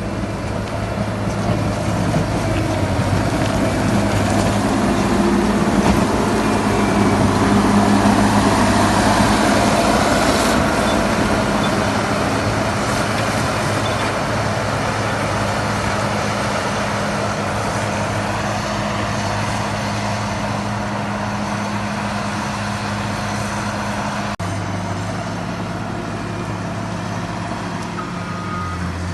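Caterpillar 140M motor grader's diesel engine running steadily under work, swelling a little louder a few seconds in. Near the end its reversing alarm starts beeping.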